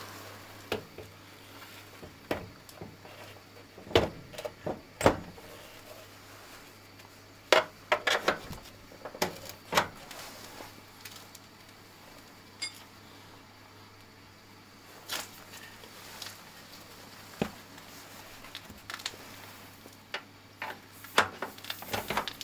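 Scattered metal clunks and clicks as an oil burner is fitted back onto the boiler's mounting flange and secured, the loudest knocks about four and five seconds in and a cluster around eight seconds.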